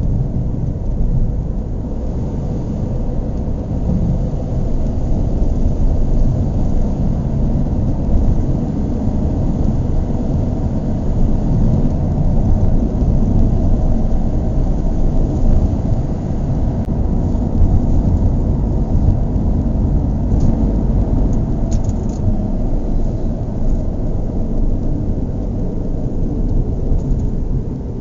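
Car engine running steadily, a loud low rumble, with a few faint ticks a little after two-thirds of the way through.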